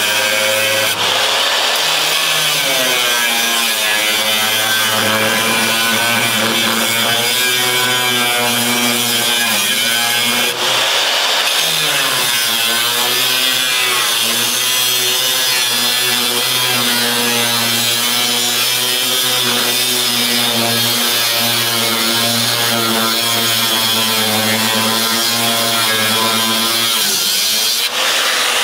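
Corded angle grinder with an abrasive cutoff wheel cutting through the steel floor of a pickup bed, running loud and continuously. Its motor pitch sags and recovers as the wheel bites, with short breaks about a second in, around ten seconds in and near the end.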